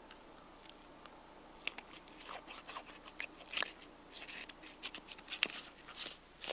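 Knife cutting and pulling neck meat from an elk carcass: faint, scattered wet clicks and crunches, with a few sharper ticks around the middle and near the end.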